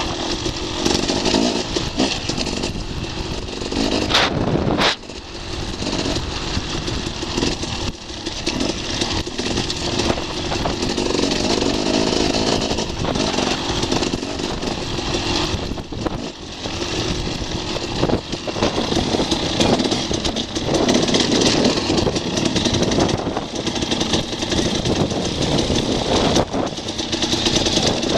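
Enduro motorcycle engine running as the bike rides a rough dirt trail, heard from an on-board camera. Two sharp knocks come about four to five seconds in.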